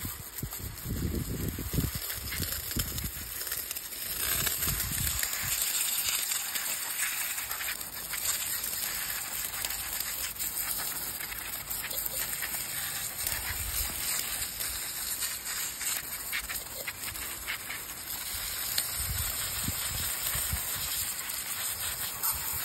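Water jet from a garden hose spray gun hissing steadily as it hits a muddy mountain bike's cassette, chain and chainring, with a few low rumbles near the start and near the end.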